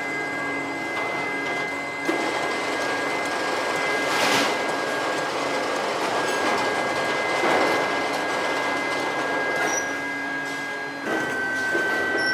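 Factory machinery running steadily: a dense mechanical hiss with a constant high whine and a low hum, and a brief louder rush about four seconds in.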